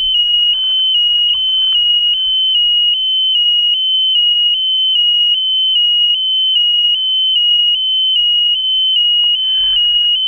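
Electronic piezo buzzer on a high-altitude balloon payload, close to the microphone. It sounds a loud, high-pitched steady tone that dips briefly about two and a half times a second, the kind of locator beeper used to find the payload after landing.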